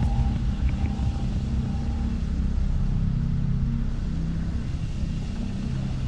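Steady low rumble, with a few faint held higher tones in the first couple of seconds.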